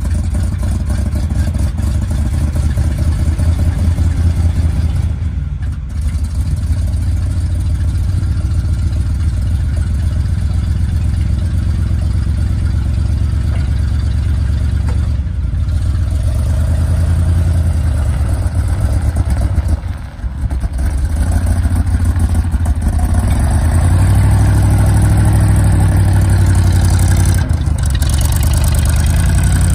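1978 GMC 6500 truck's engine running at idle, with a brief dip about two-thirds in and running a little louder near the end.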